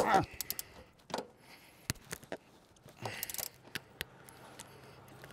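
Hand tools working on the strut tower brace in a car's engine bay: a sharp clunk right at the start, then scattered metallic clicks and clinks.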